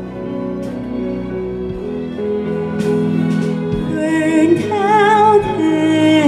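Live symphony orchestra playing a slow ballad accompaniment, with sustained string chords that grow louder. About four seconds in, a woman's singing voice enters on a high held note with wide vibrato.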